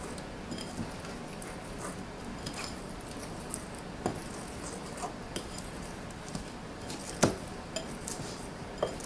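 A metal spoon clinks and scrapes against a ceramic bowl while stirring an egg into a thick oat-and-millet flour mixture. The taps are irregular, and the loudest comes about seven seconds in.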